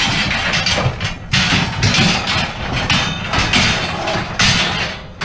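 Scrap metal being loaded into a pickup truck's bed: a dense run of clanging bangs and scrapes of metal on metal, over a steady low rumble.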